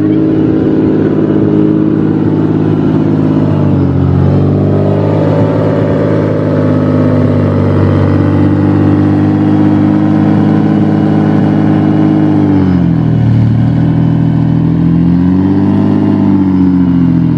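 The 5.7-litre V12 of a 1991 Lamborghini Diablo running at a steady, loud note. Its pitch dips briefly about four seconds in, sags again about two-thirds of the way through, then swells and settles near the end.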